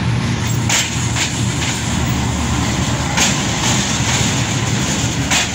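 A GEU-20 diesel-electric locomotive and its passenger coaches passing close by at speed: a loud, steady low rumble of engine and wheels, broken by sharp clacks of the wheels on the track, some in quick pairs about half a second apart.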